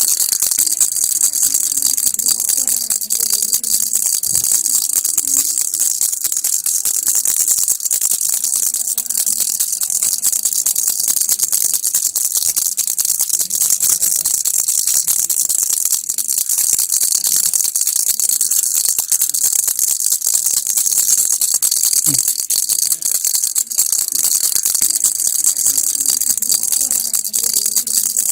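Baby rattle (kilukki) shaken without pause, a dense, steady rattle of fine rapid clicks.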